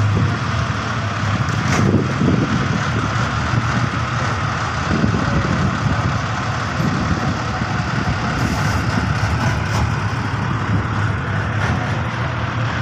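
Engine of a pneumatic-tyred road roller running steadily as the roller drives over fresh asphalt, a constant low hum.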